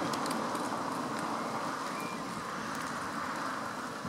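Steady rush of storm wind, easing slightly toward the end.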